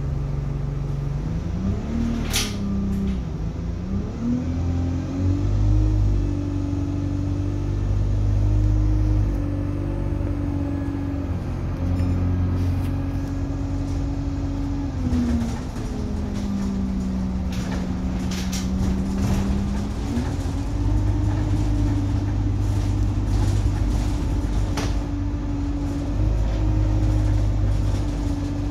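Diesel engine of an Alexander Dennis Enviro200 single-deck bus heard from inside the passenger saloon, pulling away from a low idle about a second in and then working through the gears, its note stepping up and dropping back several times. A short high squeal sounds about two seconds in, and interior fittings rattle now and then.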